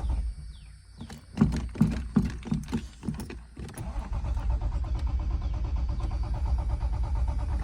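1989 Toyota Supra Turbo's 7M-GTE inline-six cranking on the starter without catching: it turns over but doesn't fire, for lack of spark. Uneven pulses about a second in give way to steady cranking, which stops near the end.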